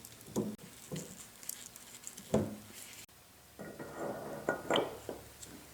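Metal machine parts being handled and fitted during motor assembly: scattered light clinks and knocks, then a busier run of clinking and rattling in the second half.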